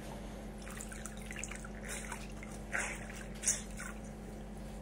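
Water dripping and splashing lightly in a sink while a wet flannel is handled: scattered soft drips, with two slightly louder splashes about three seconds in, half a second apart.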